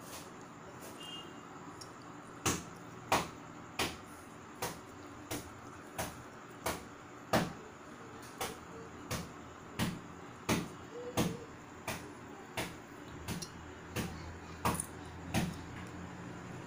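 Sharp clicks against a small drinking glass, about three every two seconds, from a hand working at the glass of liquid. They begin about two and a half seconds in and stop about a second before the end, over a faint steady hum.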